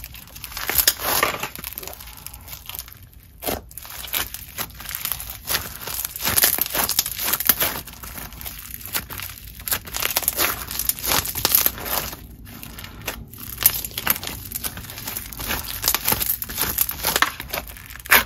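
Play-Doh Foam Sparklers foam bead slime being stretched, squeezed and squished by hand, giving dense, irregular crunchy crackles from the foam beads. Near the end it is pressed down into its plastic tub.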